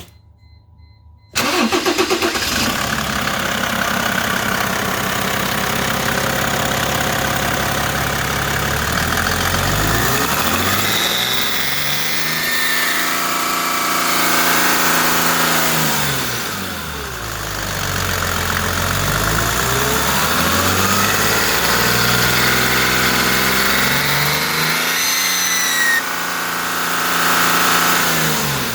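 Mercedes OM606 straight-six diesel engine starting about a second in, then running and being revved up and down several times. A thin high-pitched screech rises and falls with the revs, heard most clearly twice, partway through and near the end.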